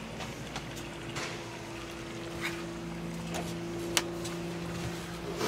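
A steady mechanical hum with a couple of held tones, and light clicks and knocks now and then, the sharpest about four seconds in.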